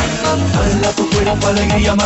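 Dance music with a steady beat and deep, repeated bass notes that drop in pitch.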